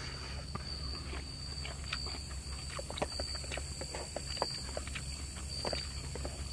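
Eating by hand: soft, irregular clicks and smacks of fingers working cooked rice in a metal pot and of chewing, over a steady high insect whine.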